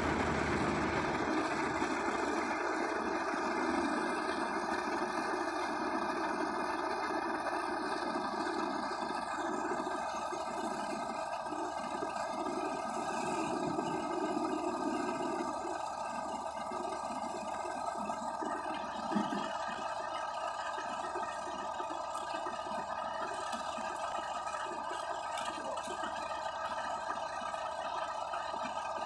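Heavy tow truck's diesel engine idling steadily, with one short knock about two-thirds of the way through.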